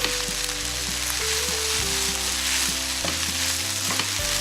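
Diced vegetables and sausage stir-frying in hot oil in a pan: steady sizzling, with the taps and scrapes of a spatula stirring. Soft background music with held notes runs underneath.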